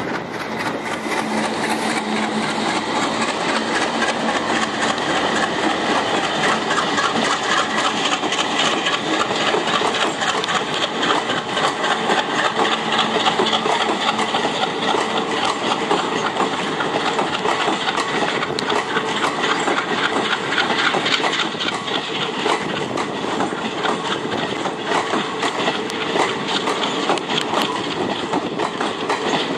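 A WDM3D diesel-electric locomotive hauling an express train goes past with its engine running. Its long rake of passenger coaches follows, wheels clattering steadily over the rail joints.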